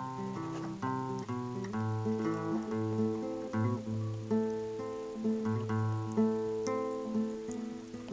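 Acoustic guitar played without singing, a steady run of strummed and plucked chords over a moving bass line.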